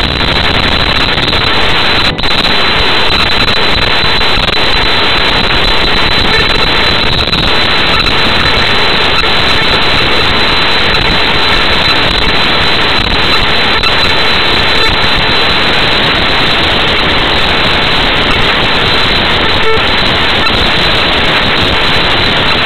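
Loud, steady static hiss with no tone or voice in it, dipping briefly about two seconds in: noise from a broken-up TV broadcast signal.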